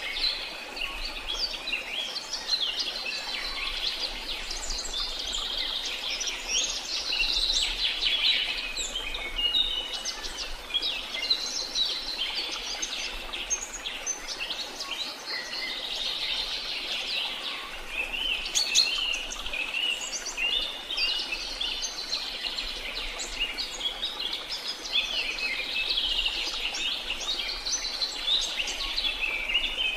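A dense chorus of many small songbirds chirping and trilling at once, a busy overlapping dawn-chorus-like texture with no pauses.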